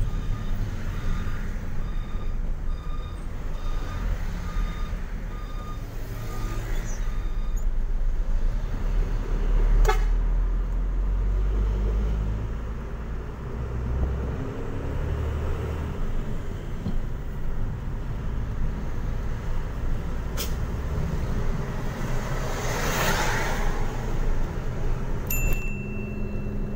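Truck's diesel engine running steadily while driving in traffic, a low rumble. A brief hiss comes in about three-quarters of the way through, with a few sharp clicks scattered through.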